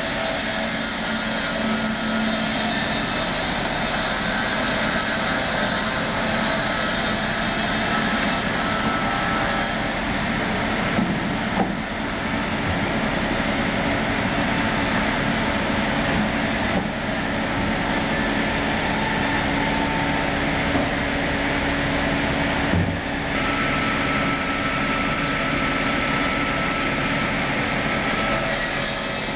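Circular-saw log mill running steadily, its large blade cutting a log fed past it on a carriage: a continuous mechanical noise with a steady tone running through it. A couple of brief knocks sound about halfway and again near the end.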